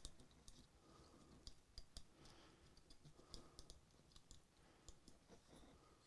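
Near silence with faint, scattered small clicks: an Allen wrench turning a small set screw down into the Timney trigger housing of an AR lower receiver, and the receiver being handled.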